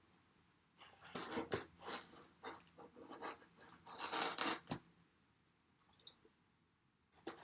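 Pizza slice torn apart by hand over a cardboard pizza box: crackling and rustling about a second in, and loudest around four seconds in. Small clicking mouth sounds of eating come near the end.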